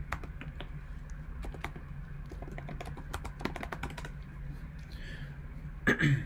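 Typing on a computer keyboard: a quick, irregular run of key clicks, then a louder knock near the end.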